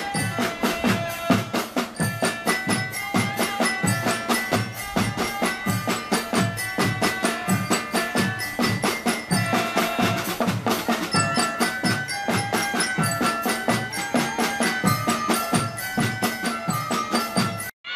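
Children's marching drum band playing: snare, tenor and bass drums beat a steady march rhythm under a stepping melody on mallet glockenspiels. It cuts off abruptly just before the end.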